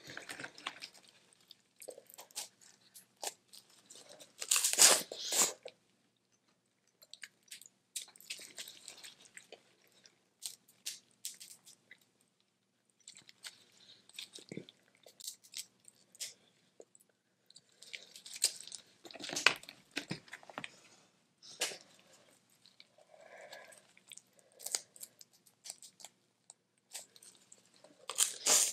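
Boiled crawfish being peeled and eaten close to the microphone: shells cracking and crunching, with chewing, in irregular bursts.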